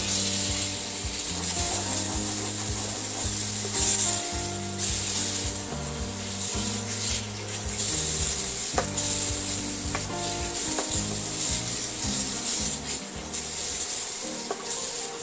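Masala paste sizzling in a non-stick kadai while a spatula stirs and scrapes it, a little water just added to keep the spices from burning. Background music with low held notes plays along.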